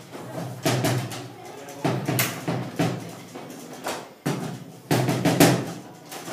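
Table football (baby-foot) in play: the ball and rods knock hard against the table, a series of sharp bangs at irregular intervals, each dying away quickly.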